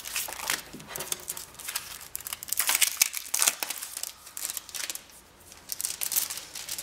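Sticker sheets and their packaging crinkling and rustling as they are handled, in quick irregular crackles with a short lull about five seconds in.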